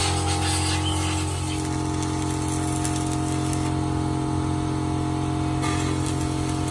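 Stick (arc) welding on the steel excavator boom: the arc crackling and hissing over a steady low machine hum.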